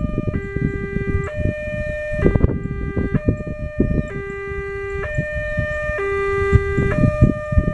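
Railway level-crossing electronic warning alarm, alternating between a higher and a lower tone, each held just under a second. It sounds while the barrier is down, warning that a train is approaching.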